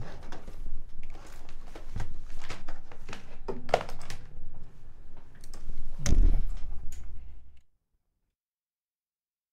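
Sheets of paper being handled and shuffled on a desk, with scattered clicks and light knocks and a louder thump about six seconds in. The sound then cuts off abruptly to dead silence.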